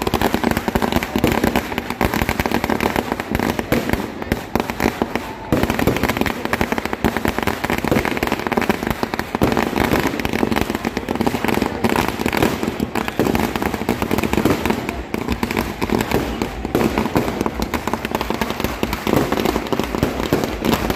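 Firecrackers and ground fireworks going off: a dense, continuous crackle of many rapid sharp cracks and pops, with a short lull about five seconds in before it picks up again sharply.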